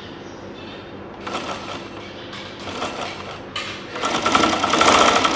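Sewing machine running in three short spurts as it stitches through fabric. The first starts a little over a second in, and the last, the longest and loudest, runs about two seconds near the end.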